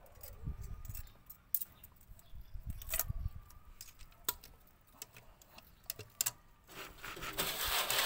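Light metallic clicks and clinks of valve springs and retainers being handled and seated by hand on an Isuzu 6HE1 diesel cylinder head. Near the end, a rushing hiss comes in.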